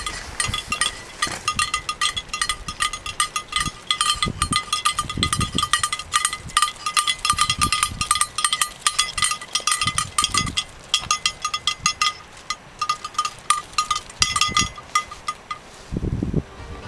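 A sheep's bell clanking quickly and irregularly as sheep trot along, each clank with a bright metallic ring, with a few low rumbles of wind on the microphone.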